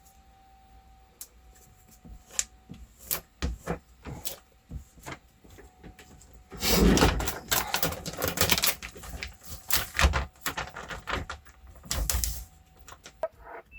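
Irregular clicks, taps and knocks of hands working with objects, with a few louder bursts of rustling and scraping in the middle and near the end.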